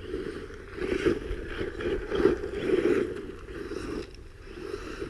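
Radio-controlled monster truck driving in soft dirt, its tyres scrabbling and scraping through the soil in several bursts, loudest about one to three seconds in. The front tyre is flat, with the rim spinning inside it.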